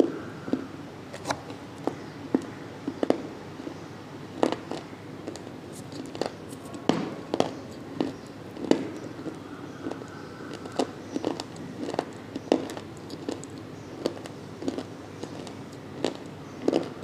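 Mouth crunching and chewing on dry multani mitti (fuller's earth clay): irregular sharp crunches, roughly one to two a second.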